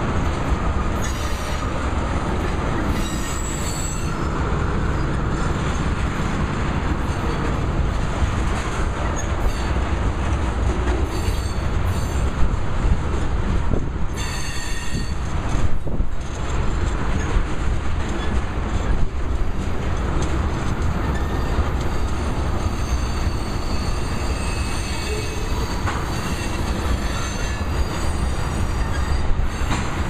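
Railroad tank cars of a slow freight train rolling past: a steady low rumble of steel wheels on rail, with high-pitched wheel squeal coming and going several times, strongest about halfway through.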